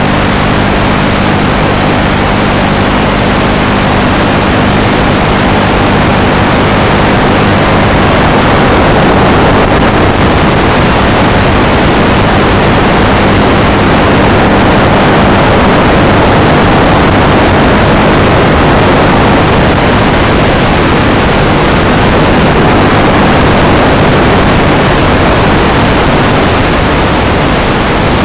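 Steady, loud hiss of static on the FPV aircraft's analog video-link audio. A few faint, steady low hum tones sit under it for roughly the first ten seconds and then fade out.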